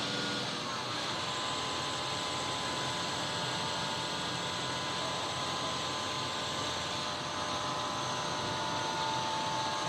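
Bus on the move: a steady run of engine and road noise, with a faint whine near the end.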